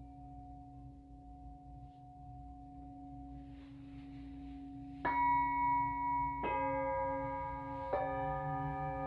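Singing bowls ringing: tones from an earlier strike hang and slowly fade, then three bowls are struck in turn about halfway through, each adding its own sustained ring over the others.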